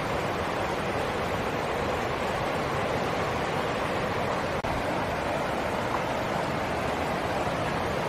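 Shallow stream rushing over rocks in small rapids: a steady, even rush of water.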